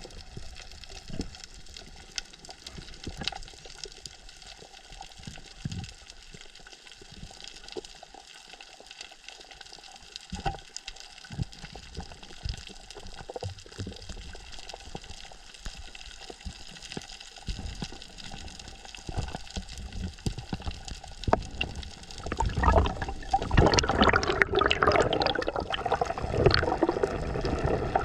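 Water heard by a spearfisher's diving camera: a faint steady hiss with scattered clicks and knocks, then, from about three-quarters of the way through, louder splashing and bubbling water.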